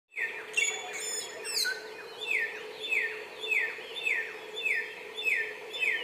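Bare-throated whistler singing: a few high, quick notes at first, then a long run of short down-slurred whistles repeated a little under twice a second.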